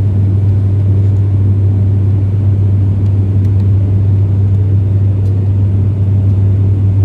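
Cabin noise of a turboprop airliner in level flight: a steady low drone from the propellers and engines under an even rush of airflow.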